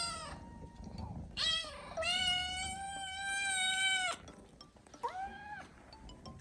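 A kitten meowing loudly and insistently, four calls with one long one held for about two seconds in the middle: a hungry kitten demanding food.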